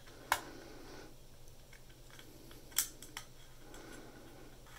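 A few faint, sharp clicks of a screwdriver working small screws into a hard drive caddy while an SSD is being mounted.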